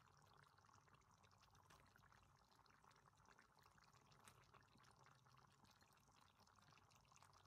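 Faint simmering of coconut-milk sauce in a wok: a soft, steady hiss with many tiny bubbling pops.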